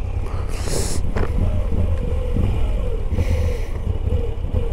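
Moto Guzzi V85 TT's air-cooled transverse V-twin running at low revs as the bike rolls slowly, a steady pulsing rumble. Two brief hisses cut in, about half a second in and again just past three seconds.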